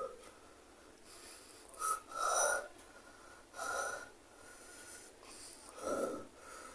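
A man breathing out hard through his mouth in four or so separate breaths, the burn of eating raw green chillies.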